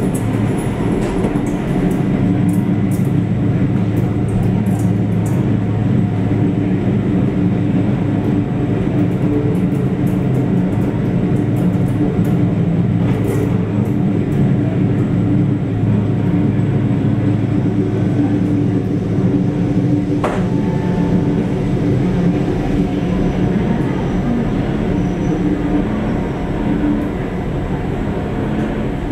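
Ex-Meitetsu Kiha 8500 diesel railcar moving slowly, heard from inside the car: a steady engine drone throughout, with a brief rising squeak about twenty seconds in.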